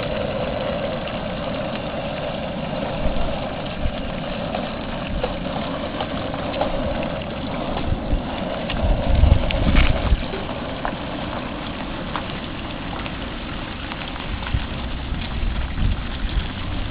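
The propane burner of a turkey fryer running steadily under a lidded pot of frying oil, a continuous rushing noise. A few low bumps on the microphone stand out, loudest around the middle.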